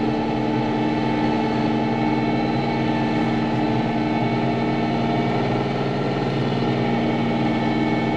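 Farm tractor engine running steadily at a constant speed while plowing snow.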